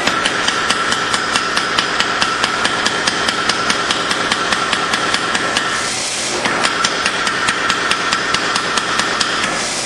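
Rapid, even hammer blows on steel being forged into a knife blade, about six strikes a second, pausing briefly about six seconds in. A steady high whine runs underneath.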